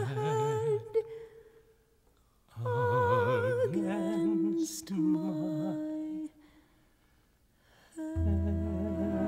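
Wordless vocal phrases with wide vibrato, hummed or sung on a vowel, in two phrases separated by quiet pauses. Near the end a sustained accompanying chord with a deep bass note comes in.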